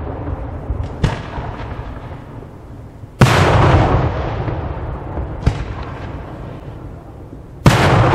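Aerial firework shells bursting: two loud booms a few seconds apart, each rumbling away slowly. Lighter, sharper bangs come in between.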